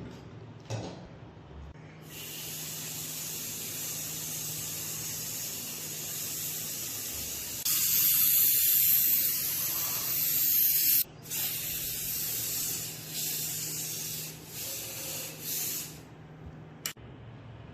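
Spray hissing from a spray nozzle as a coat is sprayed on, starting about two seconds in, loudest for about three seconds in the middle, then cut off and resumed in several shorter bursts before stopping near the end. A brief click comes near the start and another near the end.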